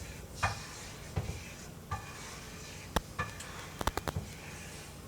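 A utensil knocking and scraping in a pan while a flour-and-oil roux is stirred: a few scattered light taps, several in quick succession near the end, over a faint steady hiss.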